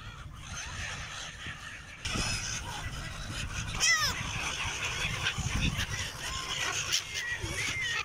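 A flock of gulls calling: scattered short squawks that start about two seconds in and come thicker from about four seconds, with one loud call near the middle, over a steady low rumble.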